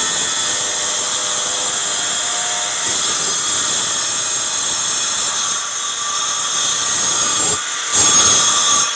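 Handheld angle grinder with a diamond blade cutting through a marble floor tile: a steady high-pitched whine over grinding noise. It dips briefly about seven and a half seconds in, then runs louder for the last second before stopping.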